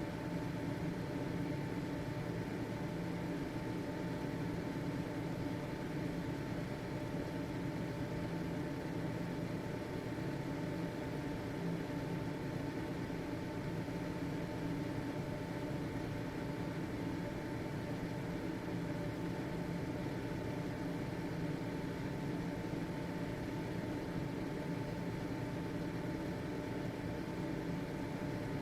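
Household exhaust fan (ventilator) motor running steadily, a constant hum with a faint steady whine over airy noise.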